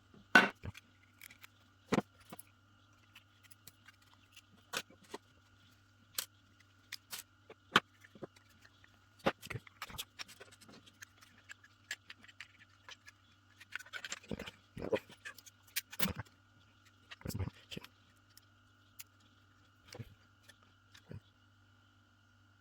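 Scattered clicks, taps and clatters of a cordless hair clipper's parts being handled and taken apart, irregular and sometimes in quick clusters, over a faint steady hum.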